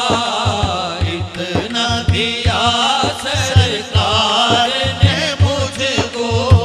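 Male voice singing a naat (Urdu devotional poem) through a microphone and PA, the melody bending and wavering, over a steady low beat of about three pulses a second.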